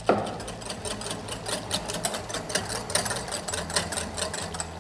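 Metal wire whisk beating egg yolks in a glass bowl, the wires clicking against the glass in a rapid, even rhythm. The yolks and a little vinegar are being whisked over heat until they foam and gain volume, the base for hollandaise sauce.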